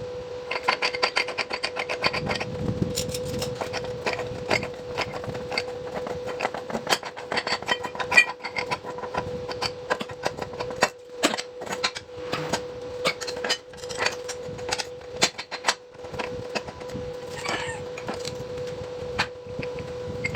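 Irregular sharp clicks and knocks of metal parts being worked and handled, with a quick run of regular ticks about a second in, over a steady hum.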